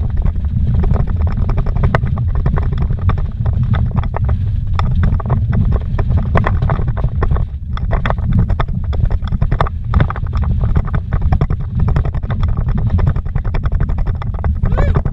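A vehicle driving fast over a rough, rocky dirt road, heard from inside the cab: a loud, steady low rumble of tyres and drivetrain, with constant rapid knocks and rattles as the wheels hit stones and bumps.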